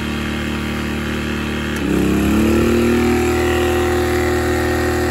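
Sportsman 1000-watt inverter generator's small engine running steadily with economy mode off. About two seconds in, it speeds up, its pitch rising and settling higher and louder, as it takes on the load of an oil-filled radiator heater being switched on at low.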